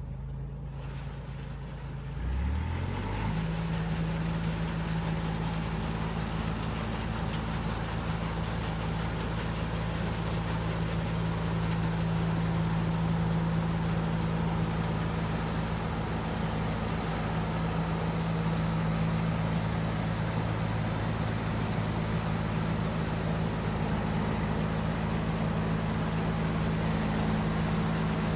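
Combine harvester's diesel engine revving up about two seconds in, then running steadily at a constant pitch while harvesting rice.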